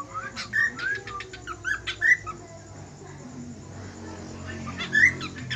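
Cockatiel whistling and chirping: a quick run of short gliding notes mixed with clicks for the first couple of seconds, then another short burst near the end.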